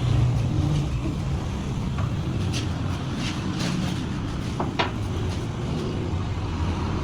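An engine or motor running with a steady low rumble, with a few light knocks and clinks over it.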